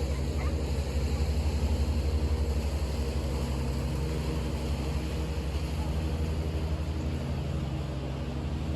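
Lawnmower engine running steadily, a low pulsing drone, with the hiss of falling rain over it.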